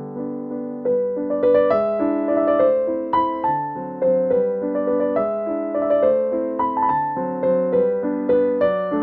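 Background piano music: a melody of struck notes, each fading after it is played.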